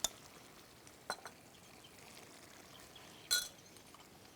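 A few light clinks and taps of kitchen utensils on cookware, the loudest about three seconds in with a short ring.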